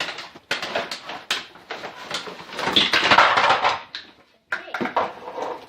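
Cardboard box of a toy snow cone machine being opened by hand: flaps and packaging scraping and rustling, with scattered sharp clicks and knocks and a louder stretch of rustling about three seconds in.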